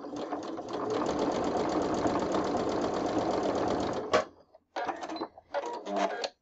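Singer electric sewing machine stitching a seam through cotton quilt pieces in a steady run of rapid, even stitches that stops about four seconds in, followed by two short spurts near the end.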